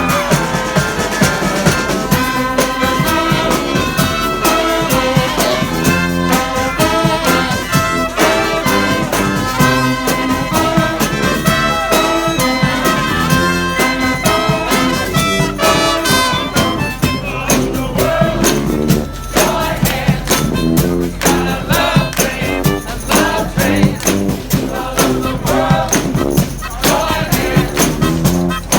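Brass band playing live, massed horns over a steady drum beat.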